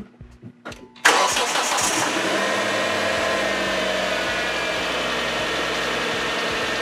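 2005 Hyundai Tucson engine being started: a few faint clicks, then about a second in it starts with a sudden loud burst and settles into a steady idle.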